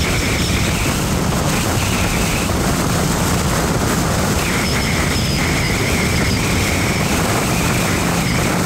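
Steady road and wind noise of a car driving along a highway, with a low hum and an on-and-off faint whine.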